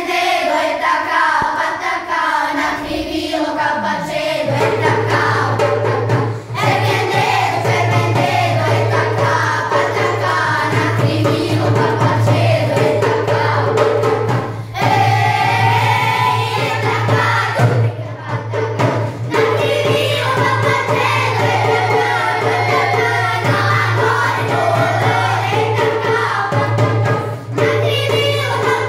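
A group of children singing a song together as a choir, with a steady low hum underneath that starts about four seconds in.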